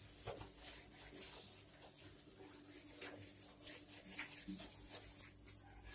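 Faint scrubbing of a soapy scrubber pad over a stainless steel gas stove top, in soft irregular strokes, with one light knock about three seconds in.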